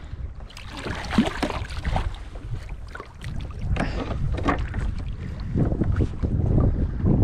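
Water splashing as a small tope thrashes at the surface beside a kayak and is swung up out of the water on the line, with bursts about a second in and again around four seconds. A low wind rumble on the microphone runs underneath.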